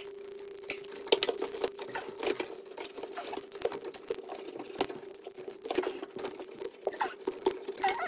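Rubber door seal of a Miele washing machine being pressed and worked by hand onto the drum opening, with irregular rubbing, squeaks and small clicks. A steady faint hum runs underneath.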